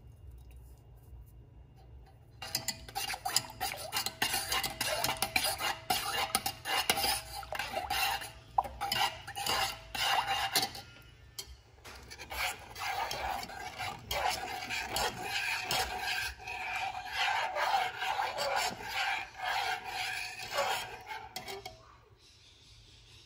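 Metal spoon stirring a milky mixture in a stainless steel saucepan, scraping and clinking against the bottom and sides in quick strokes. It starts about two seconds in, pauses briefly about halfway through, then carries on until shortly before the end.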